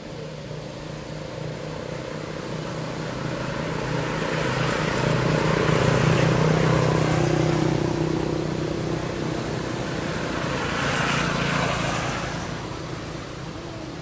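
A motor vehicle passing on the road: a low engine hum and tyre hiss build up, peak about six seconds in and fade, with a second swell of hiss a little before the end.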